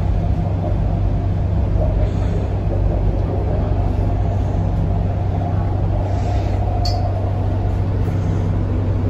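MTR C-train passenger car running through a tunnel: a steady rumble of wheels on rail with a constant low hum and a steady higher tone over it, neither rising nor falling.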